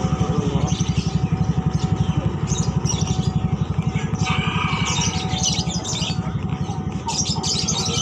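Caged market birds chirping over the steady low putter of a motorcycle engine, which fades out after about six seconds.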